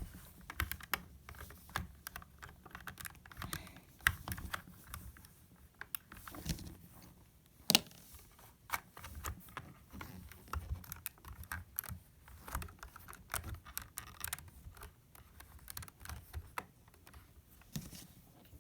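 LEGO plastic pieces of a puzzle box clicking and clattering irregularly as it is handled, with parts twisted and turned; one sharper click about eight seconds in.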